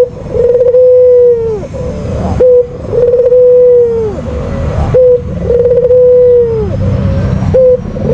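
White (albino) puter dove cooing loudly: a short note followed by a long, drawn-out coo that slides down at its end, repeated three times about two and a half seconds apart.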